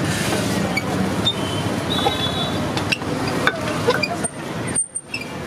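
Hand-cranked aluminium screw juicer being fed peeled oranges, giving scattered metallic clinks and knocks over a steady hum of street traffic. The background drops away briefly near the end.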